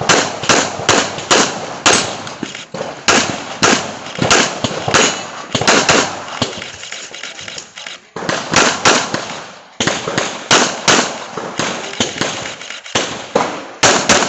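Handgun shots fired in rapid strings and quick pairs, several a second, as in a practical shooting competition stage, with two short breaks, the first about eight seconds in and the second near the end.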